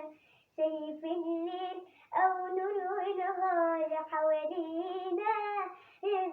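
A young girl singing a hymn in Arabic, in sustained phrases with brief pauses for breath.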